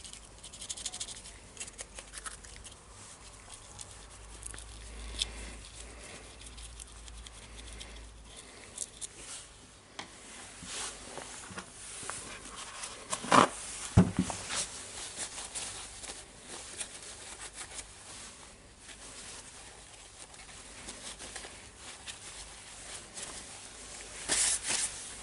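Small hand brush scrubbing a plastic power-tool part, an irregular scratchy brushing noise. About halfway through come two sharp knocks half a second apart, and near the end a short louder rustle.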